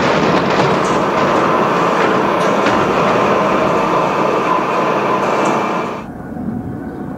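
Aircraft assembly plant noise: a loud, steady mechanical din with scattered clatter, dropping to a quieter hum about six seconds in.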